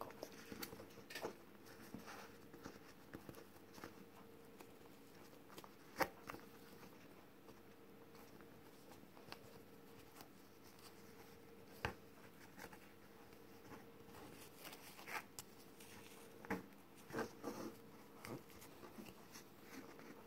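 Faint rustling of ribbons and thread being handled and tied around an egg on a ribbon stand, with a few sharp little clicks and taps scattered through, over a low steady hum.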